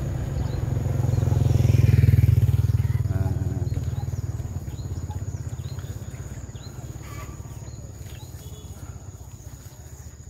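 Small motorcycle riding past, its engine loudest about two seconds in and then fading as it moves away. Faint short bird or insect chirps come through as it dies down.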